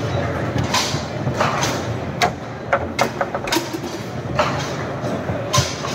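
Foosball table in play: a run of sharp, irregular clacks and knocks as the ball is struck by the plastic figures and bangs against the table, most of them about two to three and a half seconds in and one more near the end, over the steady murmur of a crowded hall.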